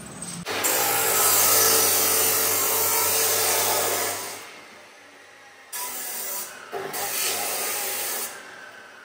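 A power tool working on stainless steel exhaust pipe. It runs in one long pass of about four seconds, then two shorter passes close together later on.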